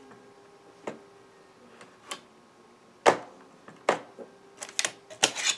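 Scattered clicking key presses on an IBM ThinkPad 600E laptop keyboard: single keys about a second apart, then a quick run of several near the end, over a faint steady hum.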